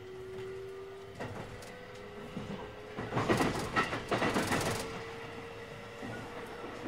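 JR West 223 series 2000 subseries electric train running, heard from on board: a steady inverter and traction-motor whine that steps up in pitch about a second in, over wheel and rail rumble. In the middle, a loud clattering rush of track noise lasts about two seconds.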